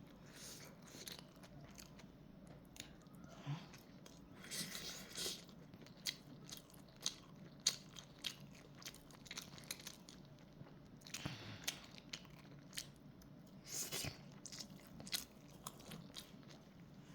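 A person chewing mouthfuls of kimchi fried rice close to the microphone, with many short wet clicks and smacks and a few longer crunchy bursts.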